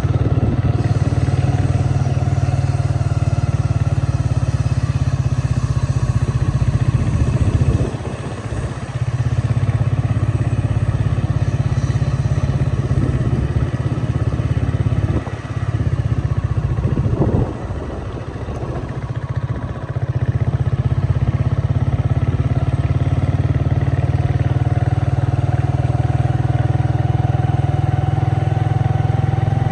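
A motor vehicle running on the move: a loud, steady low rumble that drops briefly a few times in the middle, with an engine tone slowly rising near the end.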